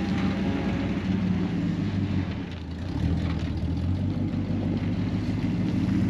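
Engine of an old grain truck running steadily as it reverses. It eases off briefly about halfway through, then picks up again.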